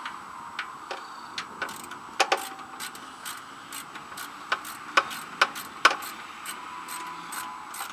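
Sharp, irregular clicks and ticks from hand-tool work on a Briggs & Stratton 11 HP lawn tractor engine, with a couple of louder clicks about two seconds in and a cluster of louder ones around five to six seconds in.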